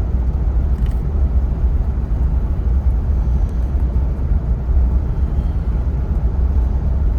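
Steady low rumble of a vehicle cruising at speed, engine and road noise heard from inside the cab.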